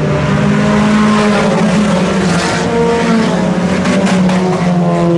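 A field of IMCA Sport Compact race cars, small four-cylinder compact cars, running hard around a dirt oval, several engines sounding at once at different pitches that rise and fall as they accelerate and lift.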